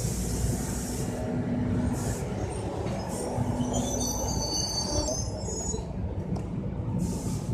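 A train running with a steady low rumble and hum. Its steel wheels squeal in several high-pitched tones from about the middle onward, with short hissing bursts near the start and near the end.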